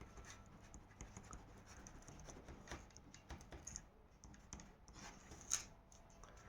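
Faint, scattered small clicks and scrapes of a Swiss Army pocket knife and its mini pen being handled, with one sharper click about five and a half seconds in.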